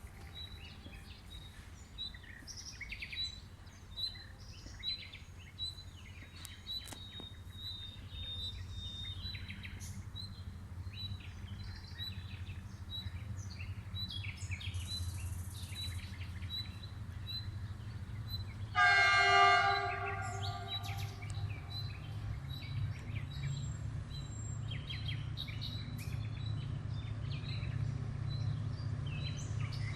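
Diesel locomotive horn sounding one blast of about a second and a half, over a low train rumble that grows louder toward the end. A bird chirps repeatedly in the first several seconds.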